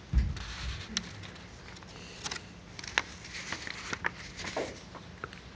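A low thump just after the start, then scattered light clicks and rustles over quiet room tone with a faint steady hum.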